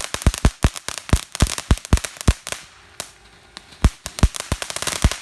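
A firework going off in a rapid, irregular string of sharp bangs. It thins to a few scattered bangs about two and a half seconds in, then finishes with a fast flurry that cuts off near the end.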